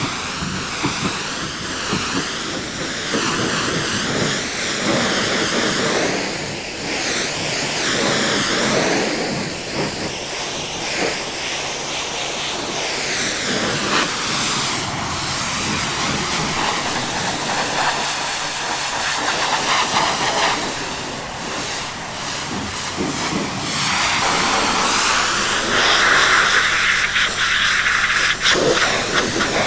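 Pressure washer jet spraying water against a dump truck's aluminum body and wheels: a steady hiss that rises and falls in pitch as the jet sweeps over the surfaces, loudest near the end.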